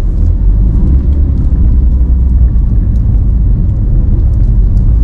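Porsche 911's rear-mounted flat-six engine heard from inside the cabin as the car pulls away gently: a steady low rumble with no sharp revving.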